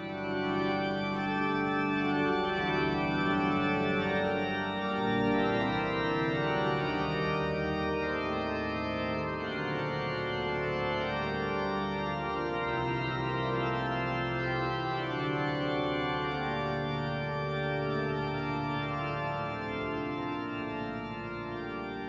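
Pipe organ, the 1976 Flentrop in Duke Chapel, playing a French baroque prelude: full sustained chords that shift every second or so over long held bass notes.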